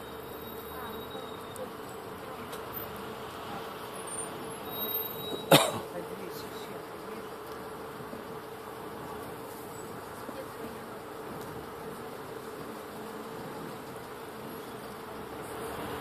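Steady droning hum with a held whine inside a bus cabin as the bus crawls through traffic. One sharp knock sounds about five and a half seconds in.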